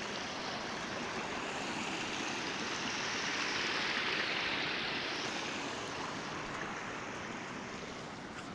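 Rushing water, a steady hiss that swells about halfway through and then slowly eases off.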